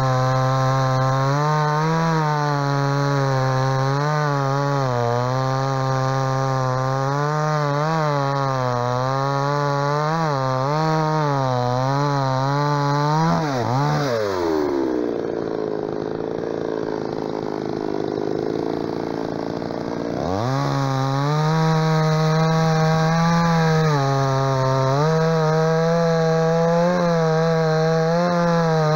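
MTX 4540 45 cc two-stroke chainsaw with a full-chisel chain cutting through birch logs under load, the engine speed wavering as it bites. About fourteen seconds in the throttle is released and the engine drops to idle for about six seconds, then revs back up sharply and cuts again.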